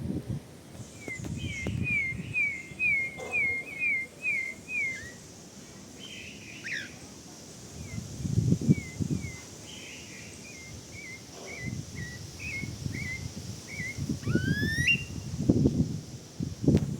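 Songbird singing: a run of short, quick downslurred whistled notes repeated about two to three times a second, a second looser run later, and a rising whistled note near the end. Low rumbling noise comes in bursts underneath.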